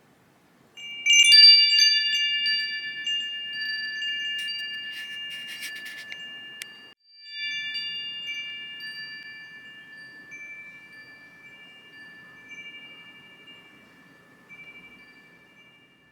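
Woodstock tuned metal-tube wind chime ringing: several clear tones sound together about a second in and slowly fade. A flurry of strikes comes around five to six seconds in, then the sound cuts out briefly near seven seconds and rings again, fading with a few light strikes.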